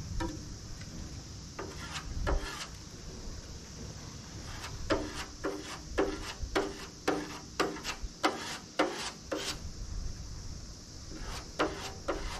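A hand putty spreader scraping body filler across a car's engine lid in short repeated strokes, about two a second through the middle of the stretch, with a couple of strokes near the start.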